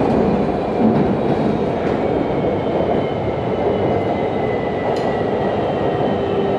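Cat Linh–Ha Dong line metro train running between stations: a steady rumble of wheels on the rails, with a faint high whine held throughout.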